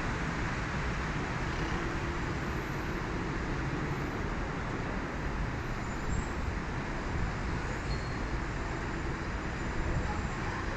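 Street traffic in the rain: a steady hiss of rain and tyres on a wet road, with passing vehicles.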